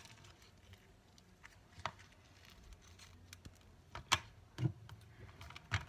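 Thick slime being handled by hand, quiet squishing broken by a few sharp pops and clicks, the loudest about four seconds in.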